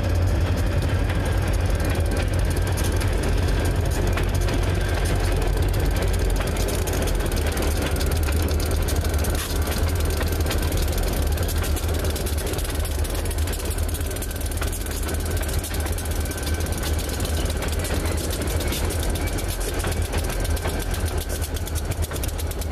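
Several diesel-electric freight locomotives of a Pan Am Railways train passing close by, their engines running with a steady deep rumble. The rapid clicking of wheels over the rails grows plainer near the end.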